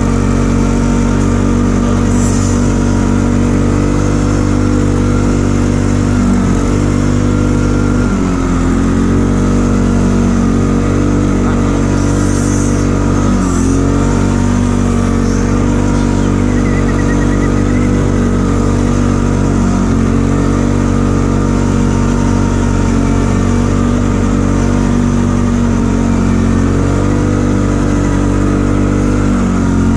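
ATV engine running steadily under way, with a brief change of throttle about eight seconds in, again near the middle, and once more about two-thirds through.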